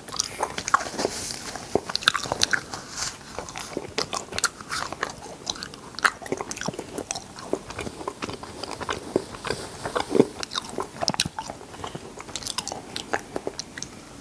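Close-miked eating of cotton candy: a dense, irregular run of sharp crackling clicks and mouth smacks as the spun sugar is bitten and chewed, with the floss pulled apart by hand.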